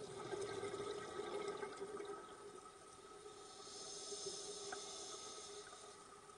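A scuba diver breathing underwater through a regulator: a gurgling rush of exhaled bubbles for about the first two seconds, then a higher, softer hiss of air from about three and a half seconds in.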